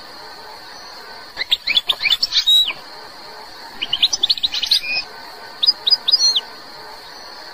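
Algerian goldfinch singing: two bursts of rapid high twittering notes, each about a second long, then near the end a short phrase of three quick chips and a slurred note.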